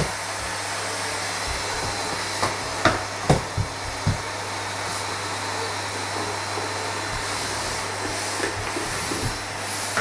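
Vacuum cleaner running steadily, with several short knocks between about two and four seconds in.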